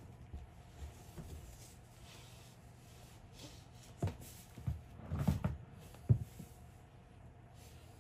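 Hands working inside the front of a carbon-fibre Ritchey-Chrétien telescope tube to take out the front baffle section: a short run of knocks and taps in the second half, one of them sharper than the rest.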